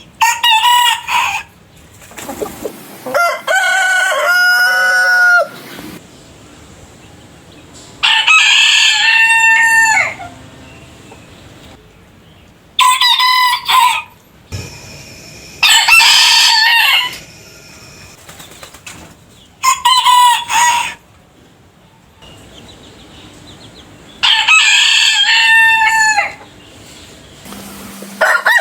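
Roosters crowing, one cock-a-doodle-doo after another: about seven loud crows, each lasting one to two seconds, with short quieter gaps between them.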